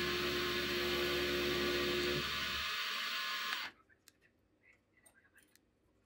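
Milling machine running, its end mill cutting duralumin, with a steady whine over a hum. About three and a half seconds in the sound cuts off abruptly, leaving only faint clicks of handling.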